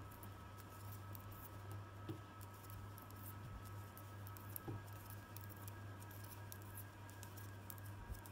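Faint, irregular ticking and clicking of metal knitting needles as stitches are worked off one needle onto the other, over a steady low hum.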